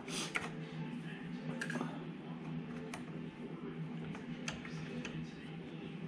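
Light metallic clicks and taps of small parts and a small wrench being handled while taking apart a shooting rest's joystick mechanism, a few sharp clicks scattered through, the loudest right at the start, over a steady low hum.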